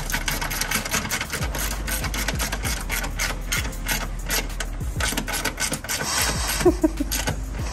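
Fine-tooth ratchet wrench clicking rapidly as it turns the bolt of a COBB pitch stop mount on a Subaru STI, in quick runs with brief pauses.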